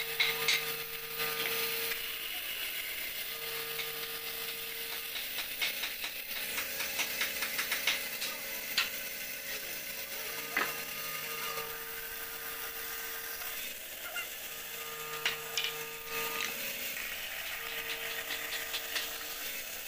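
Bandsaw cutting into a wooden table-leg block, with a rapid clicking rattle while the piece is fed into the blade near the start and again near the end. A steady hum comes and goes in between.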